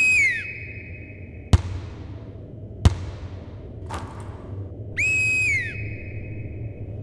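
Metal whistle blown in two short blasts, each held at one high pitch and dropping as it stops. Between the blasts, a basketball thuds sharply twice on the sports-hall floor.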